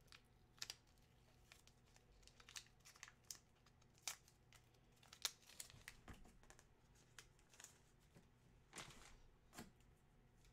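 Faint, scattered crinkling and rustling of packaging being handled, with a few sharper crackles.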